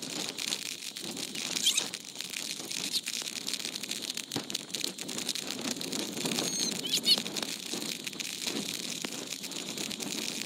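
Runoff from a rain-swollen creek rushing through a breach in a sand berm into the surf, a steady rushing hiss. A few short bird chirps sound over it, about two, three and seven seconds in.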